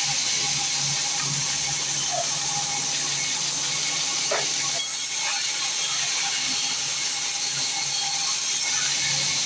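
Small sawmill machinery running steadily: a constant hiss over a low hum.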